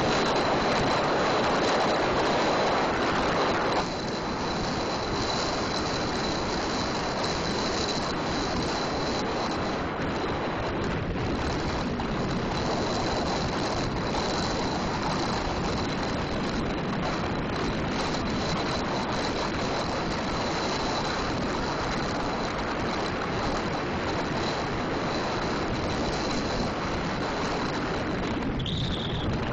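Wind rushing over the microphone and tyre noise on asphalt from a loaded touring bicycle coasting fast down a steep 7% highway descent: a steady rush that drops a little about four seconds in.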